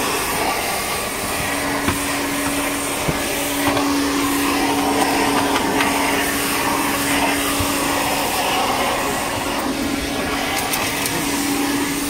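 Backpack vacuum cleaner built for aircraft 110 V 400 Hz power, running steadily with its floor nozzle sucking over carpet, with a few light knocks in the first few seconds.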